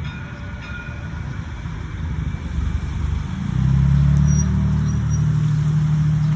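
Street traffic: a vehicle's low, steady engine hum that grows louder about three and a half seconds in.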